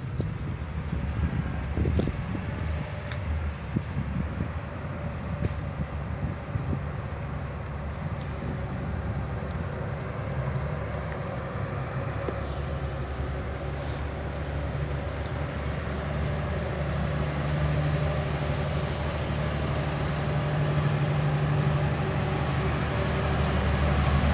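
A motor engine running steadily with a low hum that grows louder over the last several seconds; a few knocks sound in the first few seconds.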